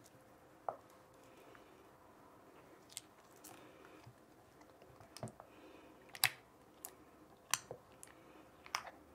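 Pink glossy slime being stirred with a wooden spatula in a glass bowl: scattered faint clicks and sticky smacks as borax activator is mixed in and the slime begins to thicken.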